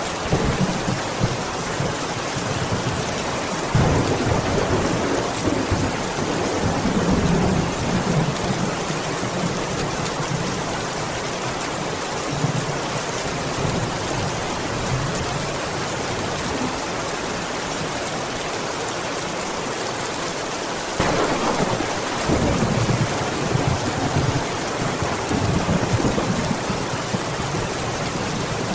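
Heavy rain falling steadily, with thunder rumbling twice: once about four seconds in, for several seconds, and again about two-thirds of the way through.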